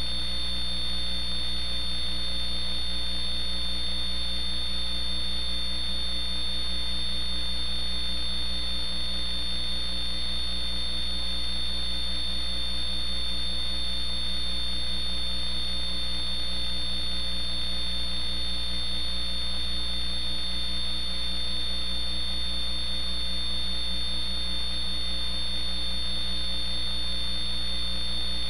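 Steady electrical mains hum on the audio line, with a thin, high, constant whine above it. It never changes and has no speech or other events.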